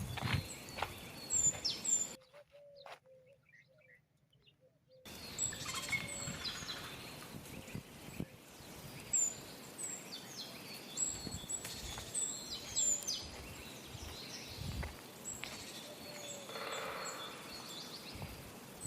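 Small birds chirping, with many short, high, falling chirps over a steady outdoor hiss. About two seconds in the sound drops out almost completely for about three seconds, then the chirping resumes.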